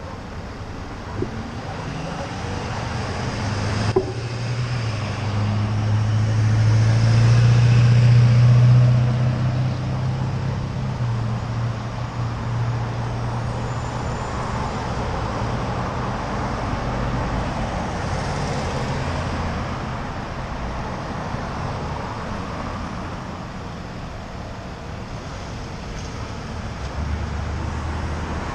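A motor vehicle passes a moving bicycle. Its low engine drone builds to its loudest about eight seconds in, then fades slowly, over steady wind and road noise on the bike-mounted microphone.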